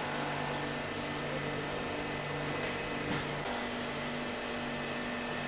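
Steady background hum and hiss with a few level tones running through it, and no distinct event.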